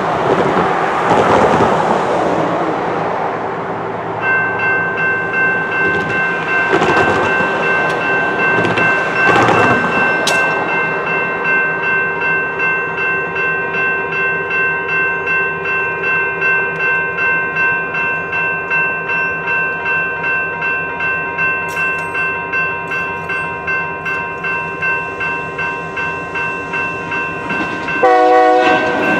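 Railroad crossing warning bells (General Signals Type 2 electronic bells) start about four seconds in and ring steadily, about two strokes a second, as the crossing activates. Before they start, road traffic passes. Near the end a light rail train's horn sounds briefly.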